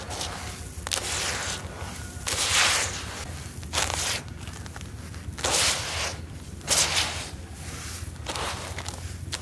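Dry, grainy sand-cement crumbles (sandment) being scooped, squeezed and poured by hand in a basin: a string of gritty, hissing pours and crunches, several of them louder, about every second or so.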